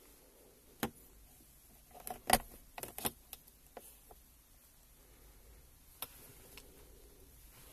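Sharp clicks and knocks of hand-handled plastic parts and a small OBD2 adapter in a car's interior, with a quick cluster of them about two to three seconds in.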